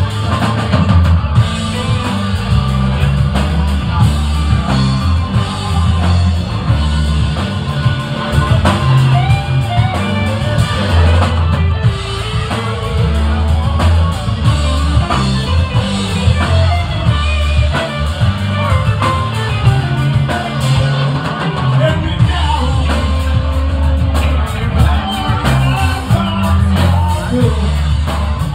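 A live rock band playing loud: electric guitars and a drum kit over a heavy bass line, with a singing voice.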